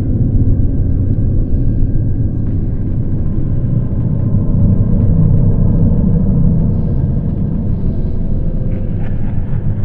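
Steady, loud low rumble of a horror ambience soundscape, with faint held tones above it that swell slightly around the middle.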